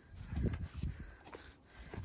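Footsteps scuffing on a steep, sandy dirt trail, a few steps roughly half a second apart.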